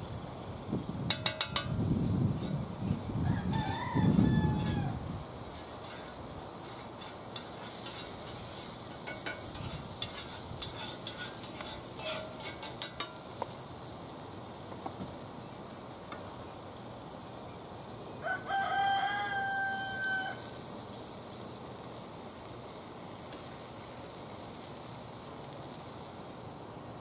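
A rooster crows twice: a short call about four seconds in and a longer one held for about two seconds two-thirds of the way through. In between, a spoon clicks quickly against a bowl as pancake batter is stirred, over a faint steady sizzle of meat frying on the grill.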